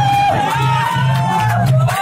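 Dance music with a steady bass beat and a long held melody line above it.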